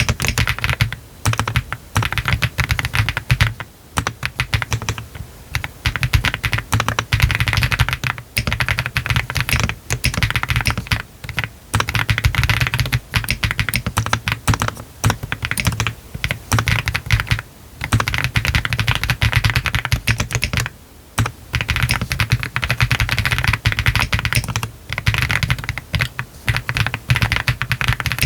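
Continuous fast typing on a Meletrix ZOOM TKL mechanical keyboard with Y3 switches, all internal foams fitted, a PC flex-cut plate and Cherry-profile PBT keycaps. The keystrokes run as a dense patter of clicks with a deep low thud under them, broken by a few short pauses.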